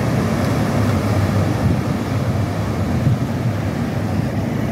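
Wind buffeting the microphone in a steady low rumble, over the rush of ocean surf breaking.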